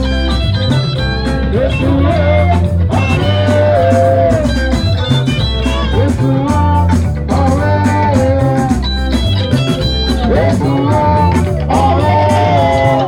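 Electric guitar played live, a melodic lead line of sustained notes, some bent in pitch, over a steady bass line.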